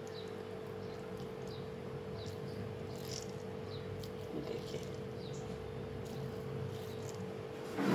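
Faint short chirps, like small birds, falling in pitch and repeating about once a second over a steady hum. Near the end there is a brief, louder rush of noise.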